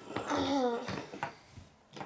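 A child's wordless, sing-song vocal sound that wavers and falls in pitch, followed by a couple of light clicks of plastic K'nex pieces.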